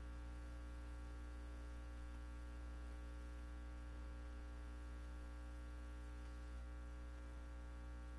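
Steady electrical mains hum with a faint buzz, unchanging throughout.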